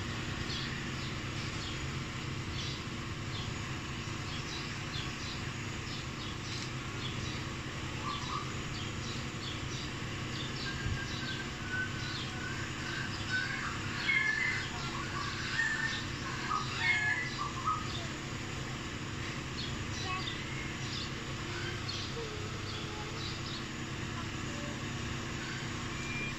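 Small birds chirping and twittering, busiest in the middle stretch, over a steady low machine hum.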